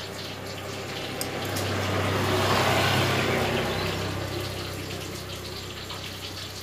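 A motor vehicle's engine passing by, swelling to a peak about halfway through and fading away, with a steady low hum over a background hiss.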